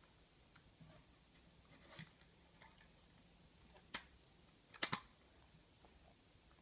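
Plastic CD jewel case handled and snapped shut: a few light clicks and rustles, a sharp click about four seconds in, then a louder double click.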